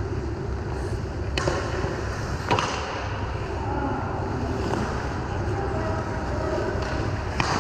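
Ice hockey play heard from the goal: a steady scrape and rumble of skates on the ice, with two sharp clacks about one and a half and two and a half seconds in.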